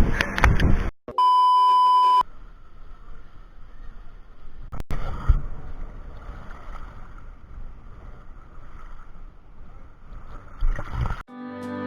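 A steady bleep tone of about a second, followed by a faint, even background rush. Music comes in just before the end.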